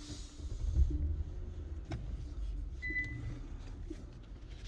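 Low steady rumble inside a car cabin, with a click about two seconds in and a short high beep about three seconds in.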